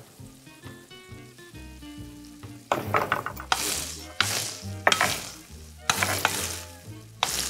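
Asparagus spears sizzling in a hot frying pan. After a quiet start, the sizzle comes in loud hissing surges roughly once a second, over faint background music.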